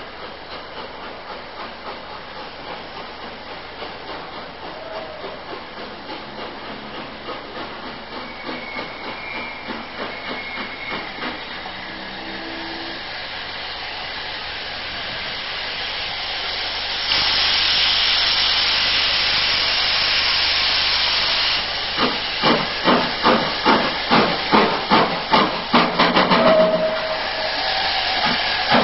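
Metropolitan Railway and GWR steam locomotives working through the station. Exhaust beats about two a second grow louder, broken just past the middle by about four seconds of loud, steady steam hiss, and then come back as sharp, loud chuffs near the end.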